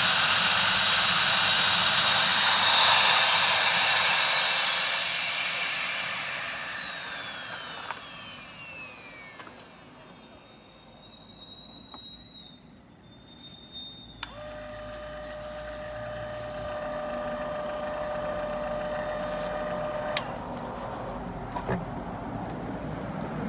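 Motor of a DIY record cleaning machine running with a loud rushing whine, then winding down with falling pitch over several seconds as it is switched off. About halfway through, a steady humming tone starts abruptly and cuts off about six seconds later.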